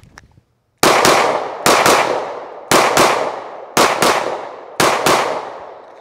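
Sig P320 XCompact 9mm pistol firing ten shots as five quick pairs, each pair about a second after the last. Each report rings out and fades.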